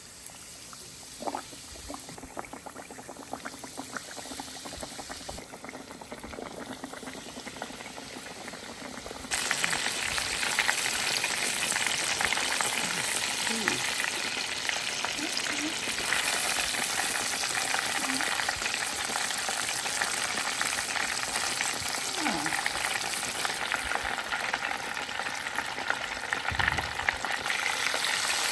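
Cornmeal-coated fish frying in hot oil: a dense, crackling sizzle that suddenly gets much louder about a third of the way through, then stays steady.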